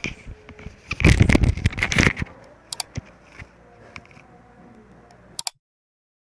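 Loud rustling and scraping for about a second, then a few faint clicks, before the sound cuts off abruptly to silence near the end.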